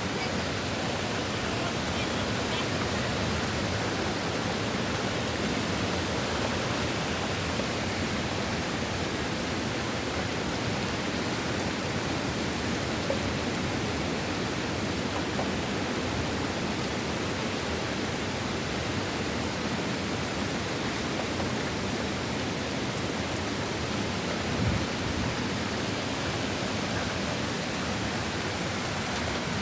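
Wind and rain of an approaching hurricane, a steady rushing noise, with one short thump about 25 seconds in.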